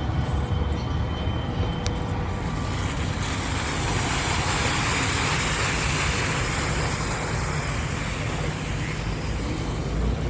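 Road traffic: a steady low vehicle rumble with a rushing hiss that swells from about three seconds in and fades near the end, as of a vehicle passing close by.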